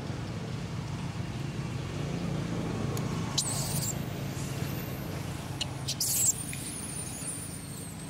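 Two short, high-pitched squeals of a baby long-tailed macaque, about three and a half and six seconds in, the second louder, over a steady low engine hum.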